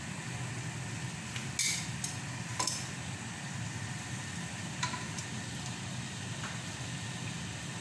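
Hot oil sizzling in a pot as fried chicken pieces are lifted out with metal tongs, with a few sharp clicks of the tongs against the pot and bowl. A steady low hum runs underneath.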